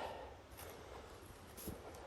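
Quiet background with two faint soft knocks, about half a second in and again near the end.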